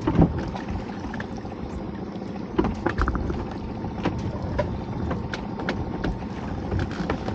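Sea water splashing and lapping against the side of an inflatable dinghy, with wind on the microphone, as a crab pot is hauled up alongside. Scattered knocks and clicks run through it, the loudest a thump right at the start and a short cluster about three seconds in.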